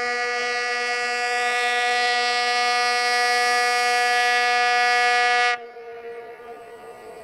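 Air horn of a rail track-maintenance machine sounding one long, steady blast that cuts off sharply about five and a half seconds in, leaving a fainter fading rumble.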